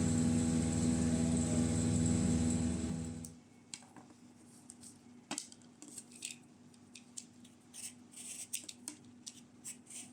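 A loud steady hum with a strong held tone stops abruptly about three seconds in. Then come quiet, scattered clicks and scrapes of kitchen utensils and dishes being handled during food preparation.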